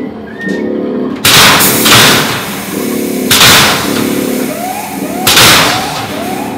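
Three loud hissing blasts from a fog jet on a haunted-house drop-floor prop, each about a second long, over a repeating droning tone in the background.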